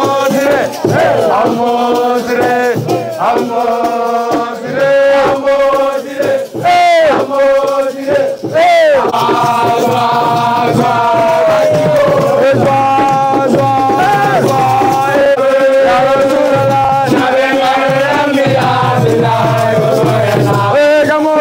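A group of voices chanting a song together, loud and continuous, with two short rising shouts about seven and nine seconds in.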